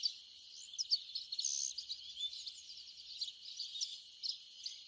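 Many small birds chirping and twittering, with quick high-pitched notes over a faint hiss.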